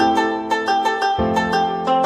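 Background music: a plucked string instrument playing a quick run of notes over low bass notes that change about every second.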